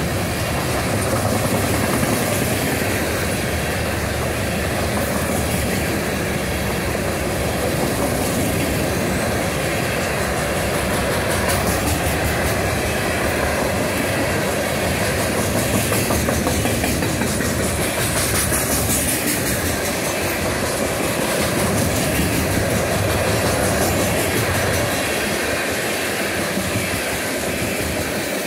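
CSX freight train's cars rolling past, a steady rumble of wheels on rail with clickety-clack over the rail joints. The low rumble thins out near the end.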